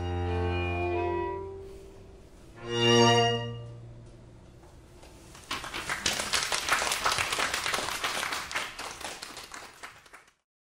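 String quartet holding a final chord, then sounding one last chord about three seconds in that rings away. About two seconds later the audience applauds, and the applause cuts off suddenly near the end.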